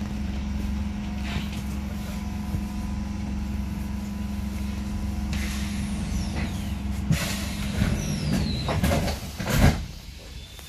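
Light-rail car's steady low electrical hum, with a hiss of compressed air from about five seconds in, two falling whistling glides and several clunks as it couples to the car in front; the loudest clunk comes near the end, and then the hum drops away.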